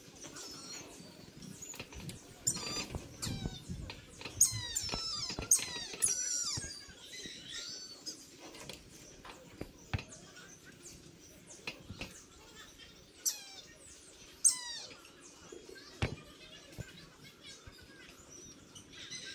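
Brahminy kite calling: runs of thin, squeaky, falling squeals in quick succession, loudest from about two to seven seconds in and again briefly near the three-quarter mark, with a few sharp clicks between.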